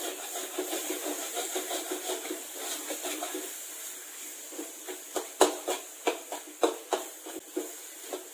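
Metal spatula stirring and scraping thick masala paste in a metal wok as the paste fries in oil until the oil separates. From about five seconds in, a quick run of sharp knocks as the spatula strikes the wok.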